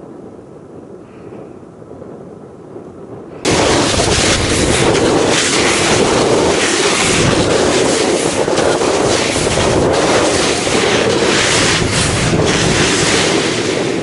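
Loud rushing and rustling noise on the camera microphone that starts abruptly about three and a half seconds in and holds steady: wind and handling noise as the camera is carried over the snow.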